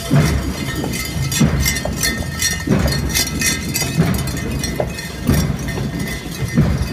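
Parade percussion: a drum beat struck at a slow, even pace, about once every 1.3 seconds, with clashing cymbal-like crashes over it.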